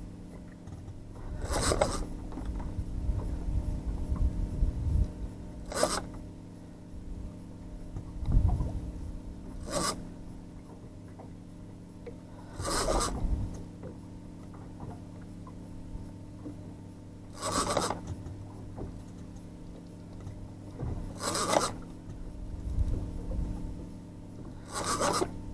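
Fishing reel drag giving line in short zipping bursts, seven times at intervals of three to four seconds, as a hooked amberjack pulls against the bent trolling rod. A steady low engine hum runs underneath.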